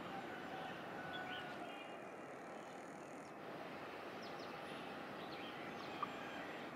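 Steady distant outdoor hum with no engine passing close, with faint, short bird chirps scattered through and a single sharp click about six seconds in.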